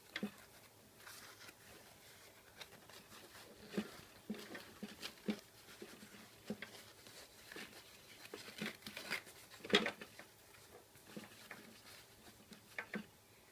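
Faint rustling and scattered light clicks and taps of hands wrapping a lithium-ion battery cell in non-conductive insulating material, with the sharpest click about ten seconds in.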